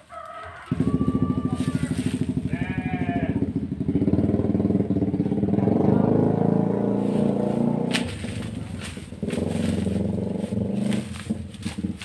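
Motorcycle engine running close by. It starts abruptly about a second in as a loud, steady pulsing and drops off briefly near the end before picking up again.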